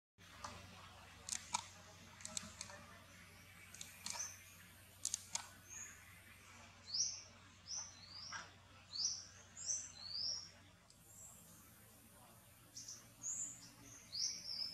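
Bird chirping: a run of short, high chirps, each falling in pitch, repeated many times from about six seconds in, with a short pause and a second run near the end. Before the chirps come scattered sharp clicks and crackles.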